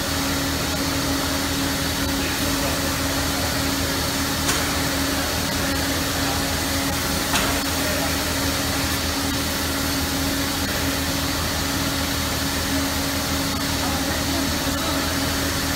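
FRP dispenser spraying resin and bamboo particles: a steady rush of air through the feed hose and gun, with a constant hum.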